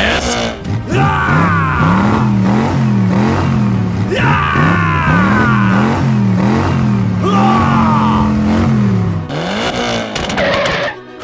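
Vehicle engine revving up and down over and over, about twice a second, with high sliding squeals laid over it.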